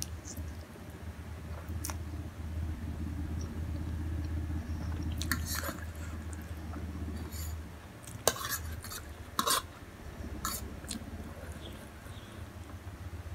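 Someone eating Samyang instant noodles: utensils clink against the bowl a few times over chewing, with a steady low hum underneath.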